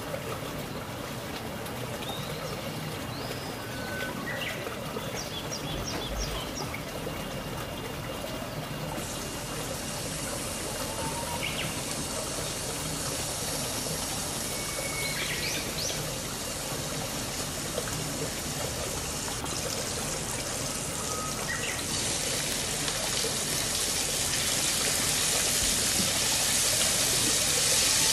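Steady watery hiss of kitchen work: tap water running, then sliced shallots and garlic sizzling in oil in a pan, growing louder near the end. A few short bird chirps come through now and then.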